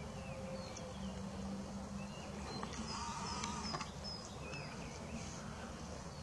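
Wild birds chirping in a series of short, high whistled notes, mostly in the middle, over a steady low hum.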